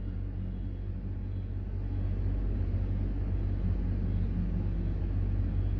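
Steady low rumble of background noise, with no distinct events.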